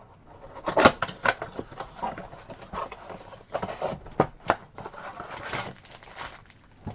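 Rustling and crinkling of trading card packaging being opened by hand, with scattered sharp clicks and taps.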